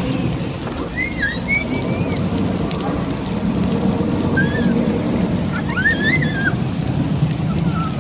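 Artificial rain from an overhead rain installation falling steadily as a continuous hiss of water drops. Several short, high, curved chirps sound over it at intervals.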